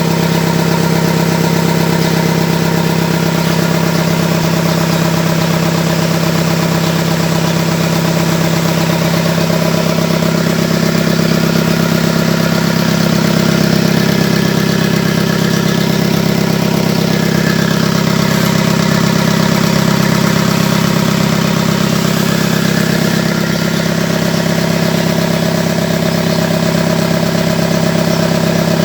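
Mitsubishi 4D31 four-cylinder diesel engine idling steadily.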